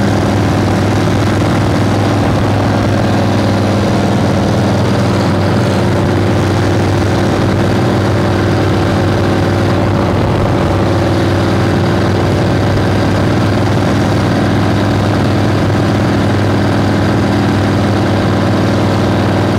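Harley-Davidson flathead V-twin engine running at a steady, unchanging speed while the motorcycle is ridden.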